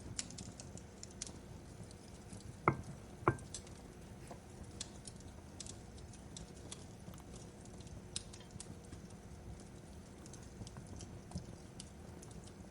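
Wood fire crackling in a fireplace: scattered sharp crackles over a low steady rumble, with two louder pops close together near the start.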